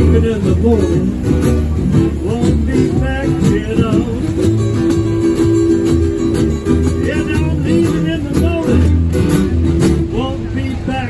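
Live acoustic blues: two acoustic guitars and a plucked upright bass playing steadily, with a man singing.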